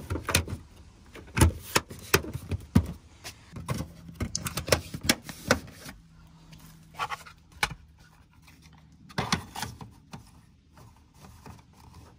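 Hard plastic dash trim pieces and an air vent being handled and pressed into place in a pickup's cab: a run of sharp clicks, knocks and scrapes, thick in the first half and sparser later.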